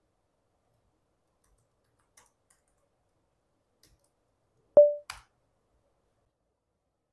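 Clicks from working a computer: a few faint clicks, then one loud, short pitched pop almost five seconds in, followed at once by a quieter click, as the command is entered.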